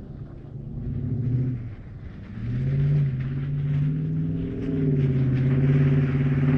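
An engine running, its pitch and loudness dipping about two seconds in, then rising and holding steady.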